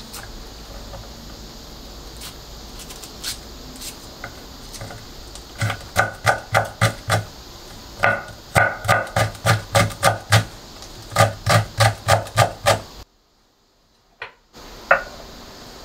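Chef's knife chopping green chili peppers on a wooden cutting board. Light scattered taps come first, then about six seconds in three quick runs of knocks follow, about four to five a second, each blade strike landing with a dull thud on the board. A single knock comes near the end.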